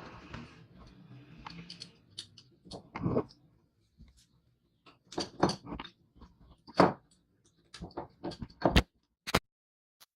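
A run of irregular knocks and clicks, as of scooter parts being handled and fitted by hand, the sharpest ones near the end, then the sound cuts off suddenly.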